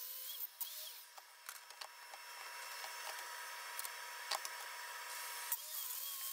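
Faint handling noise: a few light clicks and taps as a track saw's aluminium guide rail and a plastic speed square are set and adjusted on walnut boards, over a faint steady hiss.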